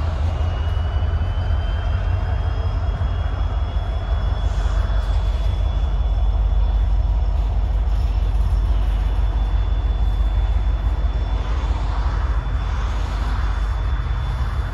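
Freight train of covered hopper cars rolling past: a steady low rumble of steel wheels on the rails, with a faint, thin, high-pitched squeal rising slowly in pitch.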